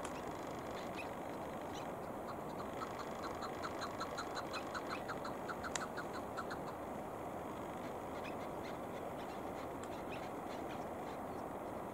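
Chukar partridge calling: a rapid run of short repeated notes, about four or five a second, that starts a couple of seconds in, swells and fades out after about four seconds. Steady background noise runs underneath.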